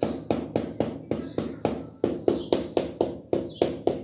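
Ceramic wall tiles being tapped into place with a rubber mallet, a steady run of short knocks about four a second, bedding the tiles into the mortar.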